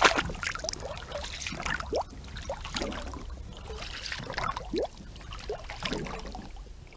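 Water splash, followed by sloshing and dripping with short rising plinks of drops and bubbles.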